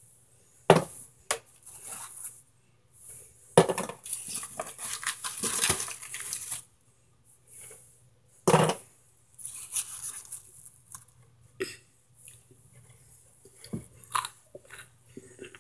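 Hands rummaging through broken microwaved cornstarch chunks in a foil pan: irregular crinkling of foil and a plastic bag with crumbly crunches, and a few sharper, louder crunches about a second in, near four seconds and past eight seconds.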